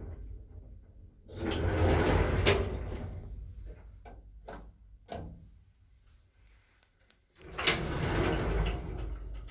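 Doors of a 1980s Končar traction lift sliding and rumbling with clicks and knocks, twice: once about a second in and again near the end.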